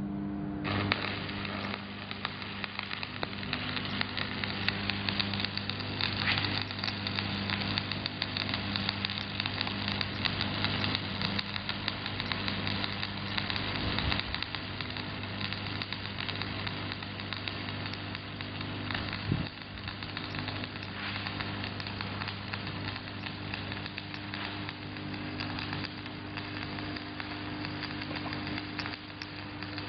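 Shielded metal arc (stick) welding: the electrode's arc crackles and sizzles steadily after being struck under a second in, over a steady low hum.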